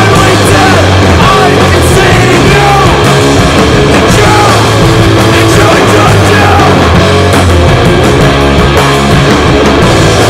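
Loud punk rock: a full band playing dense, distorted guitars over bass and drums without a break.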